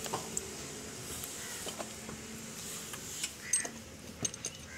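A few light metallic clicks and taps from hands working on parts around a Kinetic Honda scooter's carburettor, sharper ones coming in the second half; the engine is not running.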